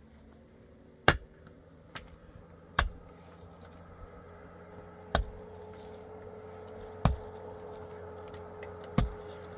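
A series of six sharp blows, one every one to two seconds, the second one weaker. A faint steady tone comes in underneath from about a third of the way in.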